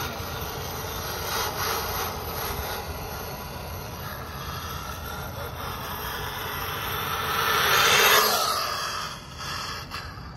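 Electric radio-controlled car on a 2S LiPo battery running over pavement, its motor and tyres making a steady rough whirr. The sound swells to its loudest as the car passes close about eight seconds in, then falls away.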